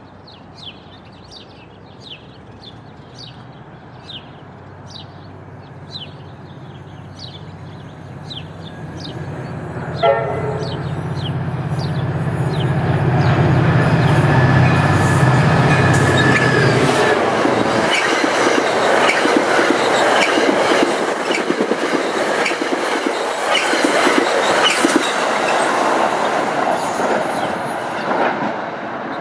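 NJ Transit F40PH-3C diesel locomotive hauling a passenger train through the station without stopping: its engine drone grows as it approaches, a short horn blast sounds about ten seconds in, then loud clattering wheels and rails as the locomotive and Comet V coaches pass, easing slightly near the end.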